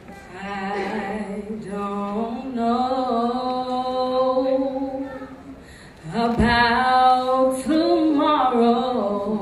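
A woman singing solo into a microphone, holding long notes; she breaks off briefly about five and a half seconds in, then comes back louder.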